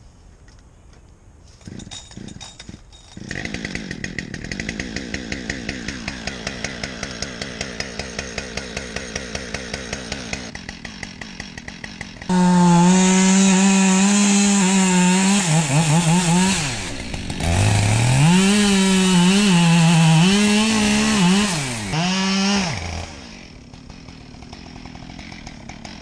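Gas chainsaw pull-started and catching about three seconds in, then idling with a steady rhythmic pulse. About twelve seconds in it goes to full throttle for about ten seconds, its pitch dipping several times as it slows under load cutting wood. Near the end it drops back to idle.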